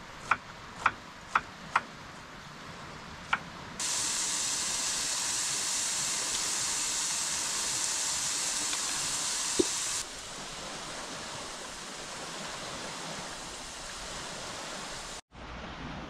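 A few sharp clicks, then a loud, steady hiss lasting about six seconds that starts and stops abruptly, over a fainter steady background.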